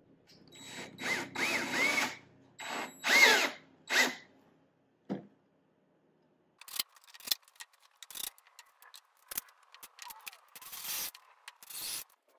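Power drill run in three short trigger bursts, its pitch rising and falling, boring countersunk screw holes so the screw heads sit flush under wallpaper. A single knock follows, then scattered light clicks and taps.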